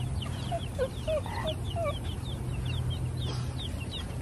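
A group of baby chicks peeping: many short, high peeps overlapping several times a second, with a few lower chirps in the first two seconds, over a steady low hum.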